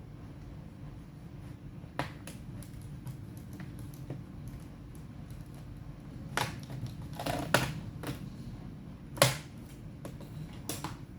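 Sharp clicks and taps of tools and small parts being handled on an open laptop, with about five louder clicks standing out over a low steady hum.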